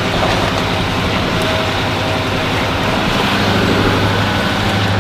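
Chevy Silverado 2500HD pickup driving on a muddy dirt trail in four-wheel-drive low: steady engine hum under tyre and wind noise, heard from outside the truck near the front wheel. The low engine tone grows stronger about three seconds in.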